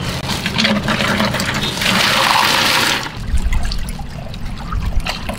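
Ice cubes tipped from a plastic bag into a glass tank of drink, splashing and clattering, loudest about two seconds in. Then a plastic scoop stirs and sloshes the iced drink.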